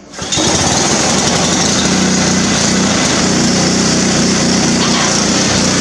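Small pressure-washer engine on a Cub Cadet riding mower, running steadily almost wide open at pressure-washer speed because no throttle is fitted yet. It comes in abruptly about a quarter second in and holds an even pitch.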